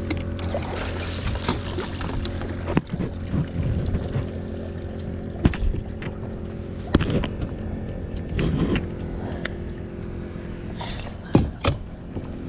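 Boat motor running steadily with a low hum, with a few sharp knocks heard over it.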